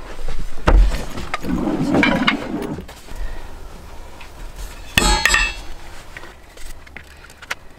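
Wooden poles knocking and clacking together as they are handled and fitted, with a sharper, ringing clack about five seconds in.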